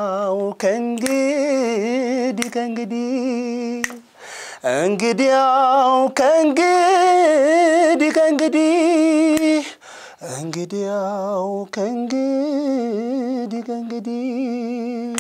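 A man singing unaccompanied in Amharic, holding long notes with wavering, ornamented turns in the Ethiopian style. He sings three drawn-out phrases, with short breaks for breath about four and ten seconds in.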